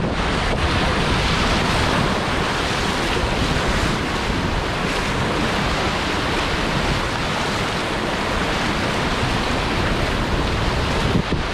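Steady, loud rushing noise of wind buffeting the microphone, mixed with a wash of water.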